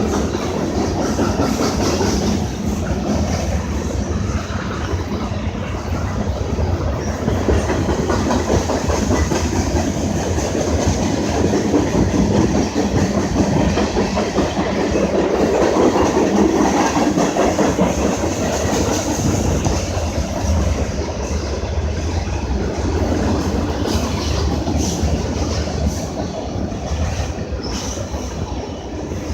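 A freight train's cars rolling past, a steady rumble with the clatter of wheels over the rail joints, swelling slightly around the middle.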